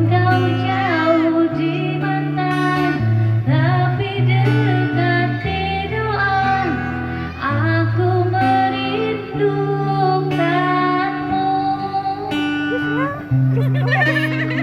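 A song: a voice singing a wavering melody over guitar and a sustained bass line.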